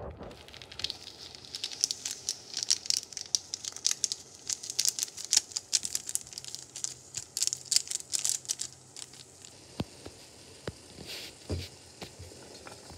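Pot of Maggi instant noodles boiling hard, a dense crackling and popping of bubbles that thins out after about nine seconds. A few separate knocks come near the end.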